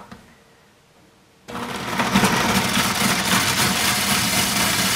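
Countertop blender switched on about a second and a half in, spinning up and then running steadily as it grinds Oreo cookies.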